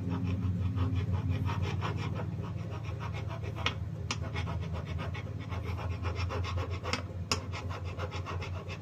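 Carbide scraper being worked back and forth in rapid strokes across a carburetor's gasket surface, a rasping scrape taking off old gasket material and corrosion. A steady low hum runs underneath.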